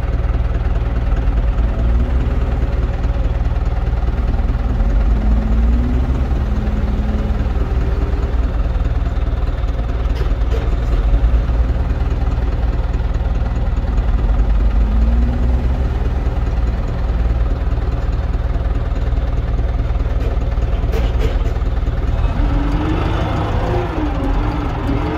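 Same Argon 80 tractor's diesel engine running steadily, with a deep low drone.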